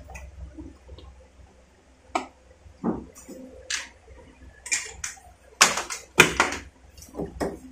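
Handling noises as a thermostat sensor cable is plugged in and fed along a stainless steel chiller cabinet: scattered rustles and clicks, with a cluster of sharp knocks about six seconds in, over a low steady hum.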